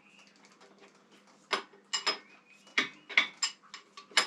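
Hand tools clinking on steel while a large triple-clamp bolt on a Harley-Davidson Evolution front end is worked loose: about seven sharp, irregular metal clicks, starting about a second and a half in.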